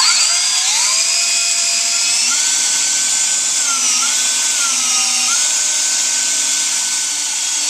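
Cordless drill spinning a Mothers Power Cone foam polishing cone against an aluminium snowmobile tunnel, working in metal polish. A steady motor whine that rises as it spins up at the start and dips briefly in pitch a few times, over a strong hiss.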